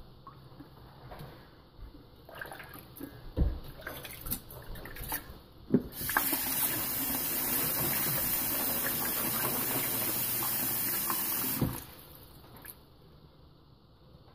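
A kitchen tap runs into a stainless steel bowl of water for about six seconds, then cuts off sharply. Before it, a hand swishes pomegranate seeds around in the bowl, with light splashes and knocks.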